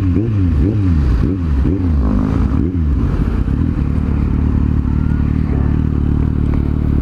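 Kawasaki Z750 inline-four motorcycle engine, loud, blipped repeatedly. About seven quick rises and falls in pitch over the first three seconds, then it runs at a steady low engine speed.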